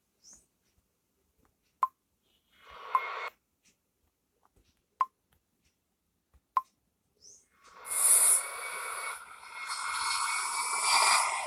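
A few sharp single clicks, typical of taps in a phone editing app, then from about eight seconds in a loud, continuous rushing jet-engine sound effect.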